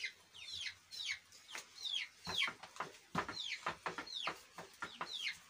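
Young chicks peeping without a break: a chorus of short, high-pitched calls, each falling in pitch, several a second.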